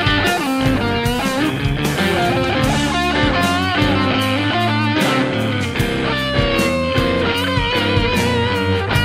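Blues instrumental: an Epiphone Dot semi-hollow electric guitar plays a lead line with string bends and vibrato over electric bass and a steady drum beat.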